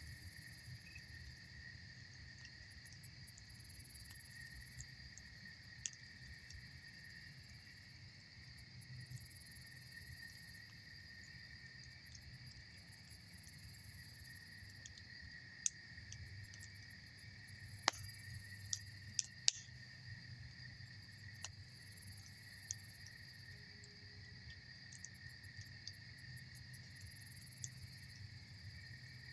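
Campfire crackling with scattered sharp pops, a quick cluster of louder pops about two-thirds of the way through, over a steady chorus of crickets.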